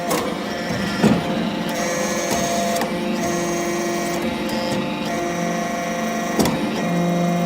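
Hydraulic briquetting press for aluminium chips running: a steady machine hum with several held tones, and a sharp clack about a second in and another near the end.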